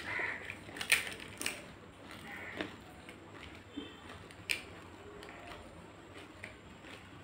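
Crisp fried fuchka (pani puri) shells crackling as a fingertip breaks a hole in the top and potato filling is pressed in: a few sharp crackles, the loudest about a second in and another about four and a half seconds in, with quieter chewing between.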